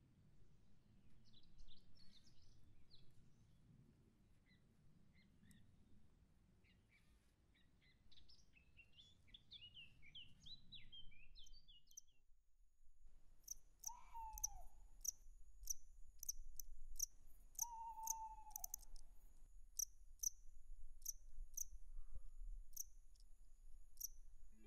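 Small birds chirping and singing over a low rumble. After a break comes a high insect-like chirping repeated at a steady pace, with two short falling owl hoots a few seconds apart.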